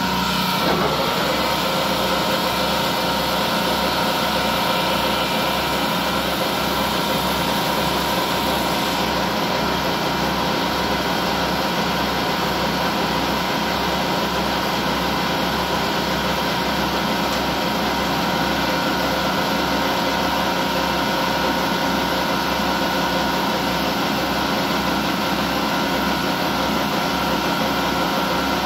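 Vertical lathe running, its cutting tool turning a groove into a rotating large steel ring: a steady mechanical hum with several held tones over a low, evenly repeating pulse.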